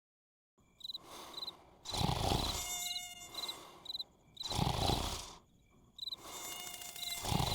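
Cartoon insect sound effects: short high chirps repeating with a buzzing haze, and a louder swell that rises and falls about every two and a half seconds.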